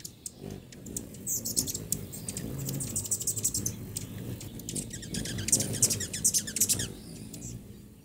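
Hummingbirds chirping: runs of rapid, high-pitched chips throughout, busiest about five to seven seconds in, over a low background rush.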